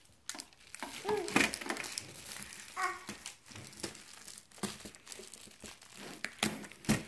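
Clear plastic wrapping crinkling and tearing in short, irregular rustles as it is pulled off a tin gift box by hand.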